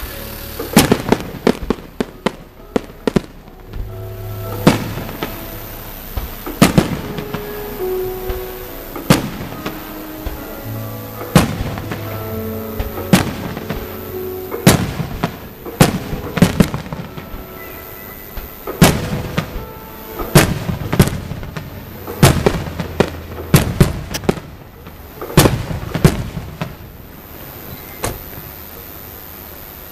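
Aerial firework shells bursting overhead, loud bangs one after another and often in rapid clusters, with a melody playing underneath. The bangs stop near the end.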